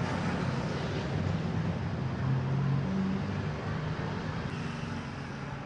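Steady road traffic rumble, with a vehicle's engine hum swelling about two seconds in and easing off over the last couple of seconds.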